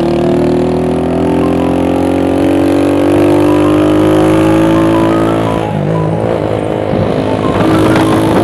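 Motorcycle engine heard from the pillion while riding, its pitch rising steadily as it gathers speed, then dropping and turning rougher about six seconds in.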